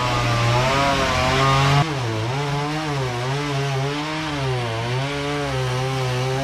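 Petrol chainsaw running at high revs while cutting into a wooden timber. About two seconds in, its pitch drops as it bogs under load, then wavers up and down as the cut goes on before steadying.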